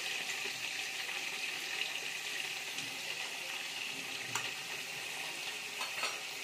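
Chicken pieces sizzling steadily in hot oil and ghee in an aluminium pot on low heat, with a few faint clicks as yogurt is spooned on.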